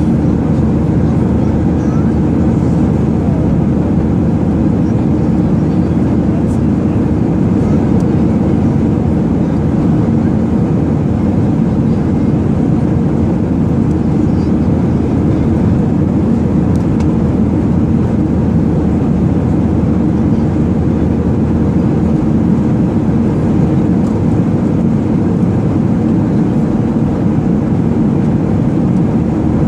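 Steady cabin noise inside an airplane: an even, unbroken low rumble of engine and airflow.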